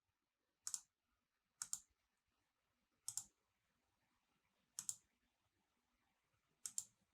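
Computer mouse clicking five times at irregular intervals of one to two seconds. Each click is a quick double snap of the button going down and coming up.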